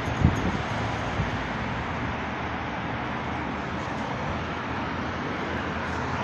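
Steady road traffic noise from cars passing on a multi-lane city road, with a couple of light knocks in the first second.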